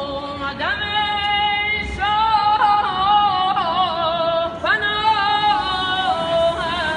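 A solo voice singing a Persian devotional song to Imam Reza, sliding up into long held notes with vibrato and ornamented melismatic turns.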